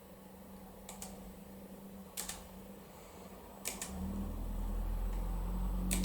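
A few sharp clicks, mostly in quick pairs, over a faint steady hum. About four seconds in, a low steady tone comes in and holds.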